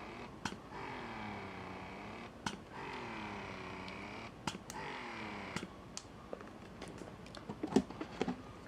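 Phanpy wearable breast pump running in expression mode at its highest level with the flange covered: a click about every two seconds, each followed by the motor's hum dipping and rising in pitch as it draws a suction cycle. After about five and a half seconds the cycling stops and a few scattered clicks follow.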